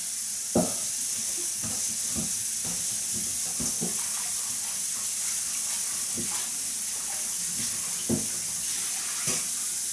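Kitchen tap running in a steady hiss of water while a stainless steel mixing bowl is rinsed in the sink, with a few faint knocks of the bowl about half a second in and near the end.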